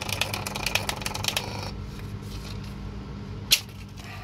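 Built-in thermal printer of a Foxwell BT-780 battery analyzer printing a test report, a rapid mechanical clicking that stops about one and a half seconds in. Near the end there is a single sharp snap as the printout is torn off.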